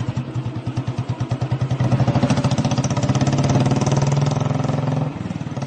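Motorcycle engine idling with an even, fast pulse, easing off about five seconds in.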